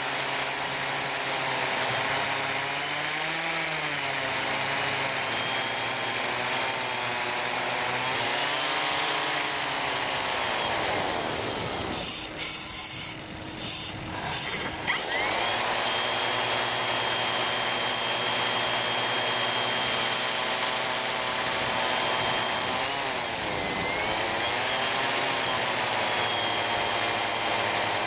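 Motors and propellers of a small video blimp whirring, picked up by its onboard camera, the pitch rising and falling as the motor speed changes. The sound drops out briefly a few times about twelve to fifteen seconds in.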